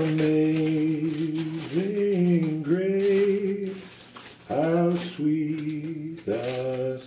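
A man's voice singing long held notes with no accompaniment, in a few short phrases separated by brief pauses.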